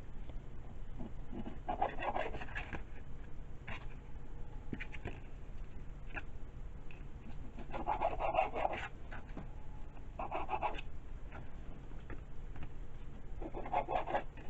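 Kitchen knife sawing through raw chicken breast on a cutting board, in a few short spells of scraping cuts a few seconds apart, over a steady low hum.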